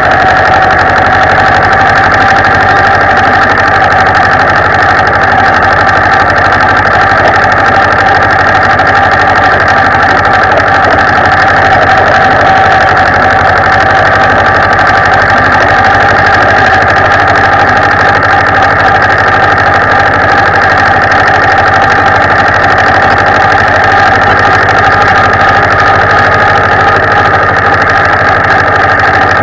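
Zetor 25 tractor's two-cylinder diesel engine running at a steady speed as the tractor drives, heard loud and close to its upright exhaust stack.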